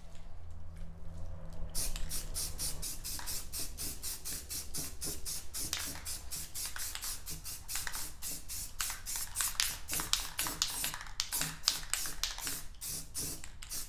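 Aerosol can of gloss black spray paint hissing in rapid short bursts, about four or five a second, starting about two seconds in, as a steel wheel is painted.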